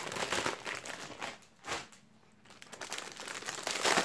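Metallised foil packaging of a Panini mega starter pack crinkling as it is handled, in two spells with a short pause in between.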